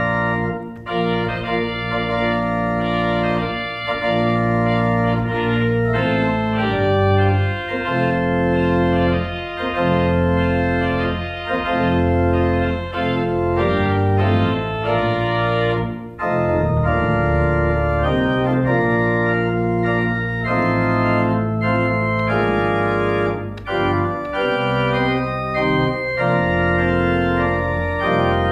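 Pipe organ playing a slow piece with both hands and pedals: sustained chords that change every second or so over a low pedal bass line.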